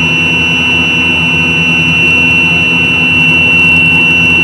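Steady hum of running machinery with a continuous high-pitched tone over it, unchanging throughout.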